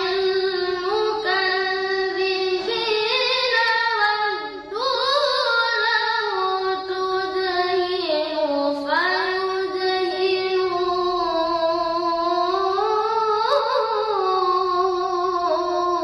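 A boy's high voice reciting the Qur'an in melodic tilawah style, drawing out long held notes with ornamented, wavering turns. There is one short break about four and a half seconds in.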